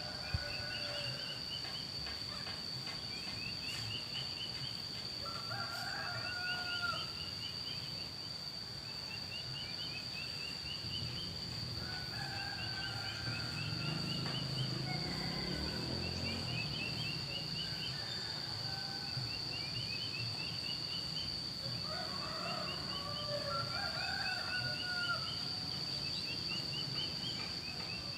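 Roosters crowing several times, answering each other at a distance, while a small songbird repeats a short rising call over and over. A steady high whine runs underneath, and a faint low rumble rises and fades around the middle.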